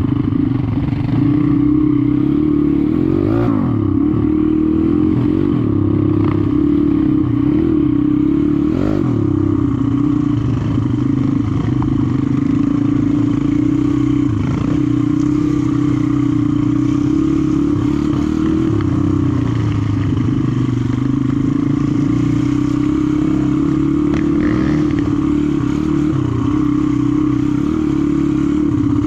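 Four-stroke dirt bike engine running steadily under throttle while riding, its pitch rising and falling a little, with a few brief knocks.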